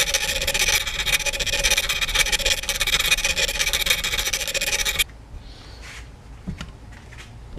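Small hand file rasping in rapid back-and-forth strokes on the carbon-steel spine of a Mora Companion knife, filing the rounded spine flat so it will strike a ferro rod. The filing stops abruptly about five seconds in, leaving only a few faint clicks.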